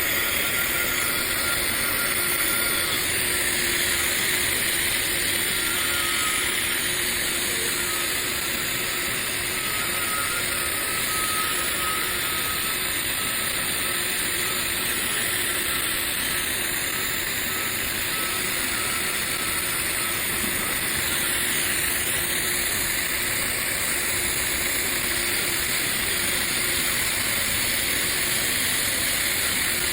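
TIG welding arc burning steadily on stainless steel, a continuous even hiss.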